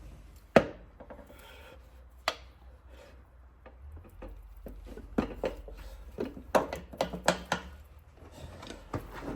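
Hard knocks and taps of tools and parts while pistons with rings are fitted through a ring compressor into a Cummins NTC350 diesel block. There is one sharp knock about half a second in, another near two seconds in, then a quick run of lighter taps in the second half.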